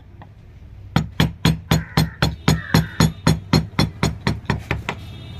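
A mallet driving a carving chisel into teak, a quick even run of about sixteen blows, some four a second. The blows start about a second in and stop near the end.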